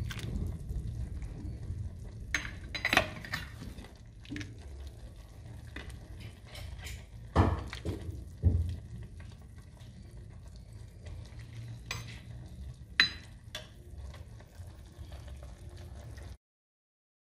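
Metal ladle scooping soup from a pot into a clay bowl: scattered clinks and knocks of the ladle against pot and bowl, the sharpest about 7 and 13 seconds in, over a steady low hum. The sound cuts out suddenly near the end.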